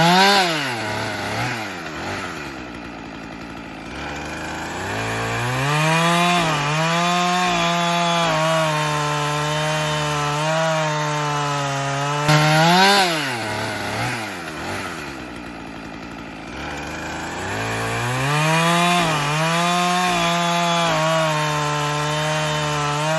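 Husqvarna 450 two-stroke chainsaw revving and cutting wood: high revs drop to idle, then the saw is held at steady high speed in the cut for several seconds. About halfway through it revs sharply, falls back to idle, and a few seconds later goes back to steady high speed in the cut.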